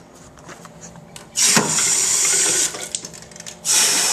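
Bathroom sink faucet turned on and off: water rushes from the tap into the basin for about a second and a half, stops, then starts again near the end.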